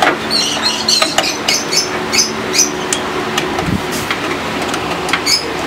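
A run of small sharp clicks and knocks from plastic connectors and metal parts being handled inside a desktop computer case as the IDE ribbon cable is fitted to the motherboard. A steady low hum runs underneath, and there is one dull thump a little before four seconds in.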